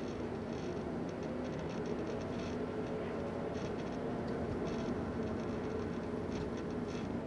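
Steady engine and road noise of a small car heard from inside the cabin while driving.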